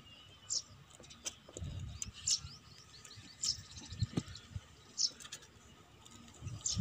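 A small bird chirping in short high notes about every second. Between the chirps come light clicks and knocks as a knife and fingers work at the aluminium edge and latches of an instrument flight case.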